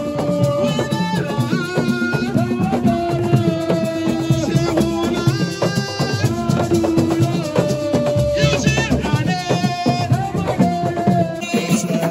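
Music with dense, fast percussion of drums and a shaker-like rattle, under a melody of long held notes.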